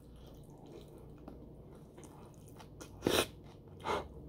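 A person chewing and biting food close to the microphone, with two louder, brief sounds about three and four seconds in.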